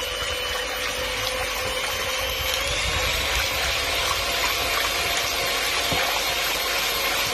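Electric hand mixer running steadily, its beaters whisking raw eggs in a glass bowl. Its whine rises slightly in pitch a little under three seconds in.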